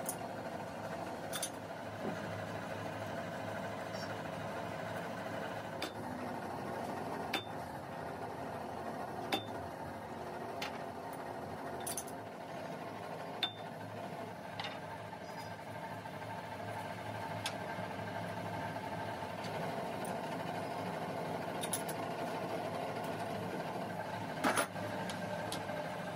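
Scattered sharp metal clicks and taps from a lathe's four-jaw chuck as the jaws are tightened with a chuck key and the work is trued against a dial indicator, over a steady mechanical hum.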